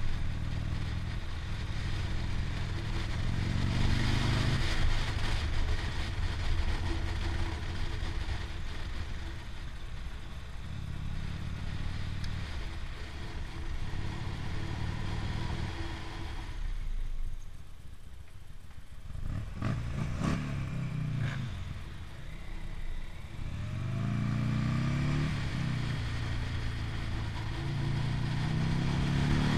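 Motorcycle engine heard on board while riding, its pitch rising and falling repeatedly as it accelerates, shifts and slows through bends, with wind rushing over the microphone. A little past halfway the wind noise falls away as the bike slows, then the engine revs back up and climbs again near the end.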